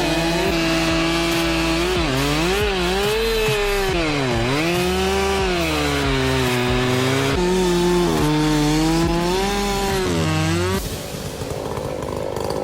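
Chainsaw cutting into wood, its engine pitch repeatedly sagging under load and climbing back. About two seconds before the end the steady engine note drops out, leaving a quieter, rougher noise.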